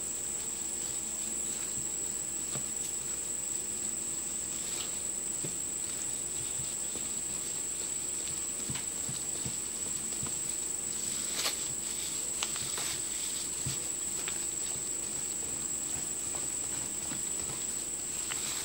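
A silicone spatula stirring thick batter in a stainless steel bowl, with a few faint scrapes and taps against the bowl. A steady high-pitched whine runs underneath.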